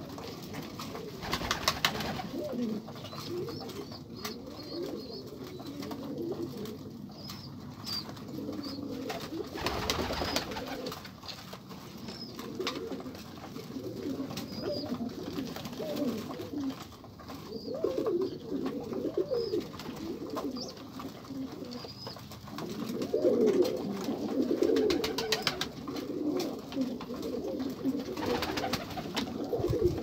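A loft full of domestic pigeons cooing continuously, many low calls overlapping. A few short bursts of wing flapping come about two seconds in, around ten seconds and near the end.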